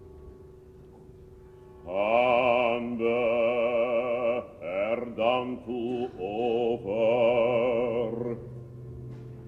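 An operatic solo voice singing a slow, chant-like line with wide vibrato, in several phrases from about two seconds in until just past eight seconds, over a low held orchestral note.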